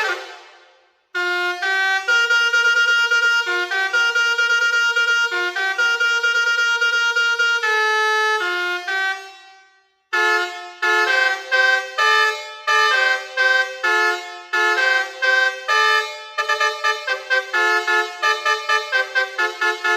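Basuri V4 21-tone musical air horn (telolet horn) playing tunes of held, stepping notes. The first tune fades out a little before halfway, and after a short silence a new one starts. It turns into quick, short notes near the end.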